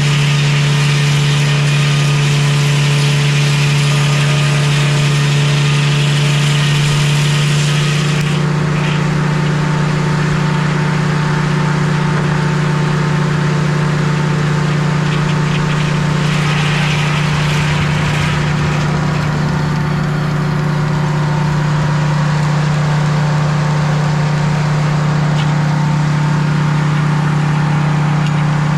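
Sawmill engine running steadily while a maple log is sawn, with a higher hiss over it that drops away about eight seconds in.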